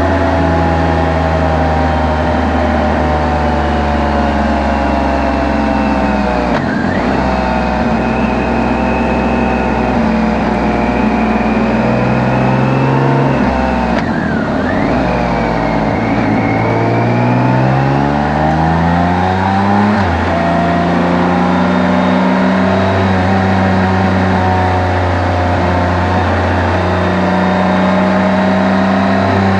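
Motorcycle engine running while riding, picked up close by bike-mounted mics. The engine note holds steady, dips sharply twice, then climbs steadily and drops suddenly at a gear change about twenty seconds in.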